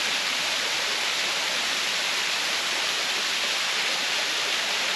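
Waterfall: water falling and splashing, a steady hiss.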